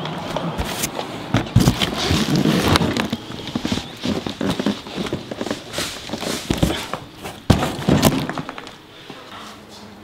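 Handling noise: irregular knocks, thuds and scuffs, with footsteps, quietening near the end.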